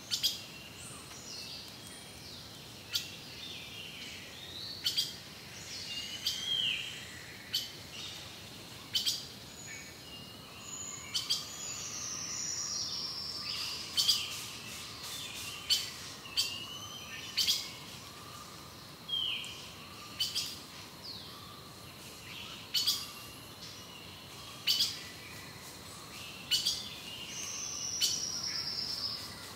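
Birds chirping and calling, with short sharp chip notes every second or two and now and then a descending trill.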